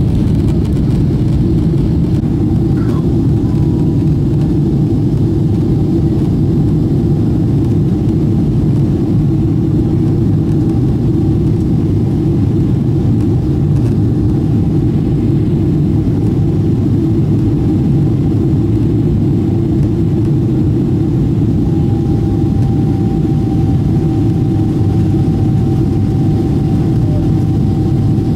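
Steady low rumble of a moving vehicle, with a faint steady whine above it that grows a little stronger about three-quarters of the way through.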